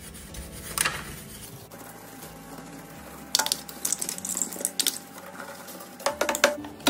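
Dry paintbrush bristles scrubbing dust off the inside of a vintage stereo amplifier's chassis and transformer cases, in short scratchy strokes with sharp clicks. The strokes are busiest from about three seconds in and again near the end.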